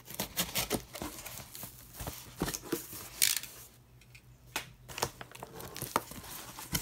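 Cardboard rustling and scraping as a shipping box is opened by hand and its cardboard insert lifted out over foam packing peanuts, in a string of short scrapes and crinkles with a quieter moment a little past the middle.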